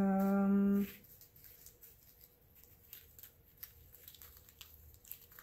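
A woman's voice holding a long, level-pitched "euhh" of hesitation for about a second at the start, then faint clicks and rustles of small plastic bags of rhinestones being handled.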